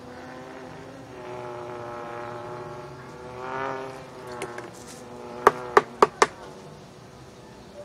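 A motor vehicle's engine running steadily, swelling briefly about three and a half seconds in. Near two-thirds through come four sharp knocks in quick succession, the loudest sounds here.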